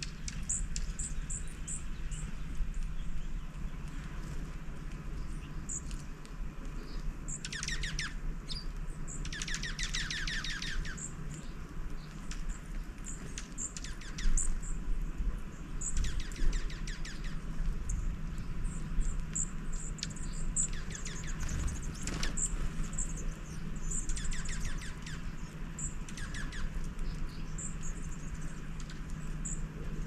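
Small songbirds chirping and calling, many brief high chirps with a few quick runs of buzzy repeated notes, the longest about ten seconds in, over a low steady hum.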